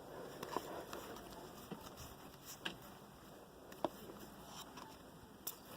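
Trading cards being handled and flipped through: faint rustling with a few soft, sharp clicks spread through it.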